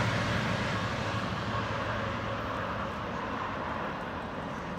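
GO Transit commuter train running away down the track, its rumble fading steadily as it recedes.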